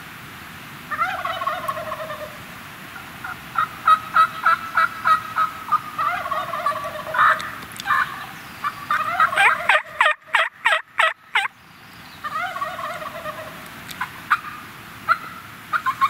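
Merriam's wild turkey gobbling from its roost in a tree: several rapid, rattling gobbles one after another, the loudest run about two thirds of the way through.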